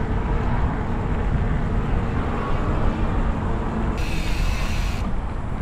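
Wind rushing over the camera microphone as a mountain bike rolls along a paved road, a steady low rumble. About four seconds in, a brief higher hiss lasts about a second.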